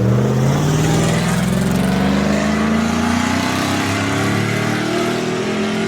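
Car engine accelerating hard, its pitch climbing steadily for several seconds, then levelling off near the end.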